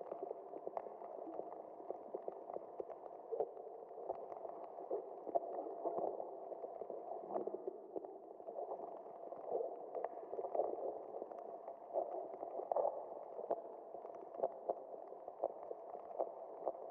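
Sound-design soundtrack of continuous muffled bubbling, like water gurgling, dense with small irregular pops.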